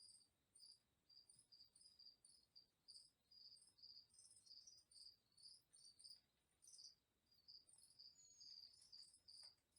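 Crickets chirping faintly: a steady run of short, high-pitched chirps, a few a second.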